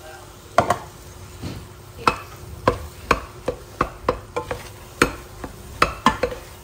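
A silicone spatula stirring thick carrot halwa in a stainless steel pot, mixing in dry milk powder, with scraping and sharp knocks on the pot at an uneven pace of about two a second.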